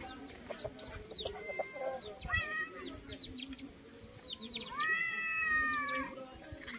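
Domestic animal calls: a run of quick, high, falling chirps, like chicks peeping, with a short arched call about two seconds in and a longer drawn-out call about five seconds in.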